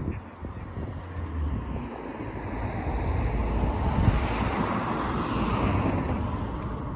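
A road vehicle passing by, its noise building over a few seconds, peaking past the middle and easing off, with wind rumbling on the microphone throughout.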